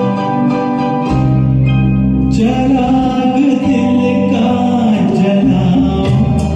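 Karaoke backing music of a Hindi film song playing, with a man's voice coming in singing the melody a little over two seconds in.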